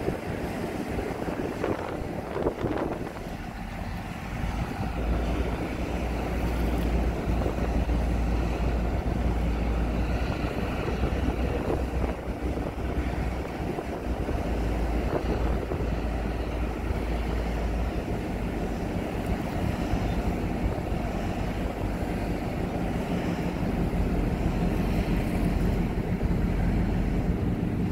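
Tugboat engine running with a steady low hum that grows stronger about five seconds in, with wind buffeting the microphone.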